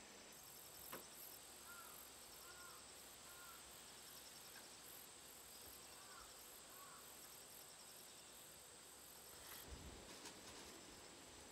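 Faint, steady high-pitched trilling of insects outside, pulsing in repeated trains. A few soft knocks come near the end.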